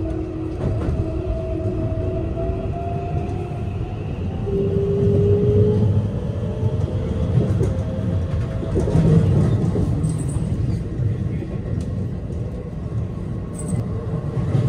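Keihan electric train running along the track, heard from inside its cab: a steady rumble of wheels on rail. In the first five or six seconds a faint humming whine drifts slightly in pitch, then fades.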